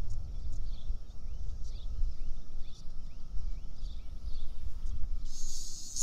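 Wind rumbling on the microphone over a faint steady drone of a periodical cicada chorus, with a string of small rising bird chirps. About five seconds in, a loud high hiss starts.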